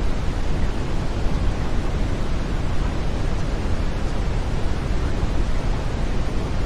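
Steady brown noise: an even, deep rushing hiss, strongest in the low end, with no change over time.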